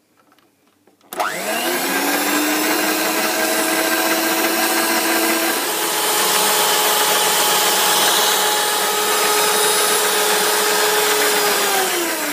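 Electric stand mixer running its twin beaters through egg whites being whipped to stiff peaks. The motor starts about a second in and quickly rises to a steady whir, its pitch steps up about halfway, and it winds down near the end as it is switched off.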